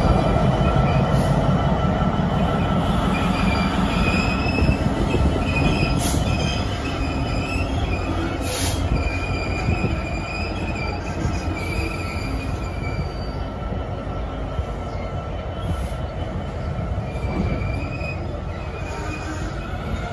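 A GBRf Class 66 diesel-hauled freight train of bogie hopper wagons rolling past. The locomotive's engine rumble fades as it pulls away, the wagons' wheels squeal with a wavering high note, and there are a couple of sharp clunks.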